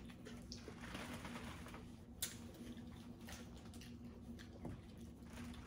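Faint eating sounds: scattered clicks and squishes of seafood-boil shells being peeled and eaten, with the sharpest click a little over two seconds in. A low steady hum runs underneath.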